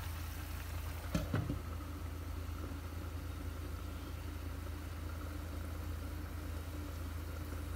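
Steady low hum of kitchen equipment running while a stainless steel pot of oil heats on a glass cooktop, with two light clicks a little over a second in.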